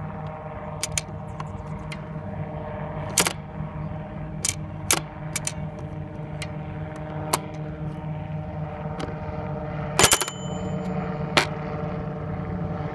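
Sharp plastic clicks and snaps from a toy engine shed's spring-loaded doors, pressed shut and popping open. There are about eight separate clicks, with the loudest, a quick rattle of several, about ten seconds in. A steady hum with a few held tones runs underneath.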